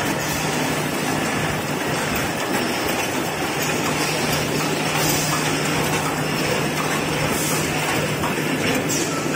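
Toilet paper production line running: the roll conveyor and film-wrapping packing machine give a steady mechanical noise with a low, even hum.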